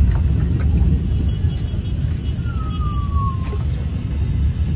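Steady low rumble of wind buffeting the microphone on a moving motorboat, with a short falling whistle-like tone about halfway through.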